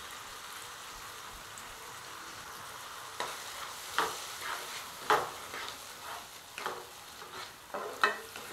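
Spiced masala sizzling gently in a non-stick kadai on low flame, with a dollop of beaten yogurt just added. From about three seconds in, a spatula scrapes and stirs the yogurt through it in quick strokes, about two a second.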